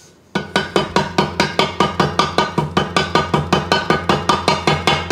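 Background music with a fast, even plucked beat of about five or six notes a second over a steady low tone, starting abruptly about a third of a second in.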